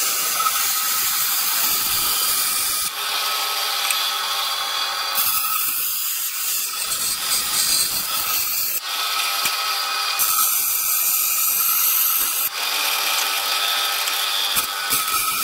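Small bench bandsaw with a wood-cutting blade running and cutting 4 mm aluminium plate. The steady machine sound shifts in tone several times as the plate is fed and turned.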